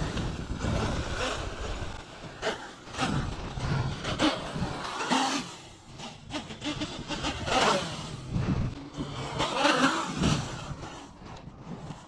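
Electric RC truck's brushless motor whining up and falling away in a run of short bursts as it is driven on and off the throttle across grass.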